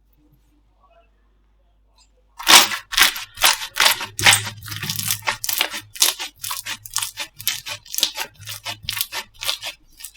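Slime being squeezed and worked by hand, giving a quick, irregular run of crackles and pops that starts about two and a half seconds in.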